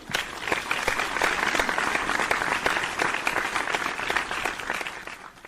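Audience applauding: dense, even clapping that starts at once and cuts off suddenly near the end.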